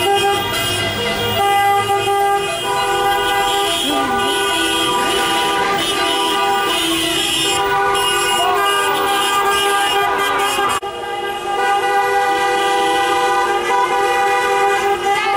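Many car horns sounding together in continuous celebratory honking, overlapping steady tones with hardly a break, dipping briefly about eleven seconds in.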